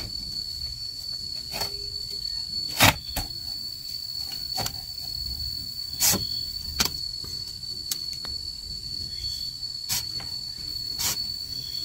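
A steady, high-pitched insect drone, like a cricket, runs on without a break. Over it come sharp knocks at irregular intervals from bamboo strips being struck and handled, the loudest about three seconds in.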